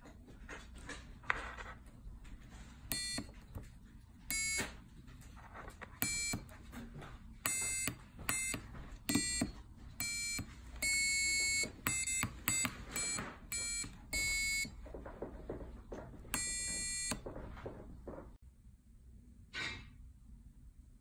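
Piezo buzzer driven by an Arduino beeping in short and longer bursts, about fifteen in all, as tactile push buttons on a breadboard are pressed, with light clicks of the buttons and handling between beeps.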